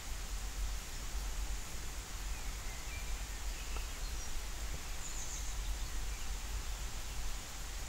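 Steady hiss of light rain with a low rumble underneath, and a few faint bird chirps about two and a half seconds in.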